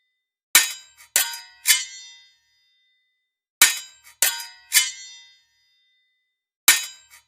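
Sword blades clashing, metal on metal: groups of three sharp ringing strikes, each fading with a long ring, one group about a second in, another near the middle, and a third starting near the end.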